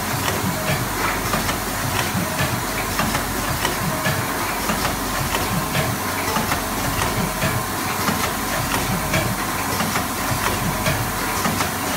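Group of tea bag packing machines, including a C21DX ultrasonic pyramid tea bag machine, running continuously. The sound is a steady mechanical clatter of many quick small clicks over a hiss.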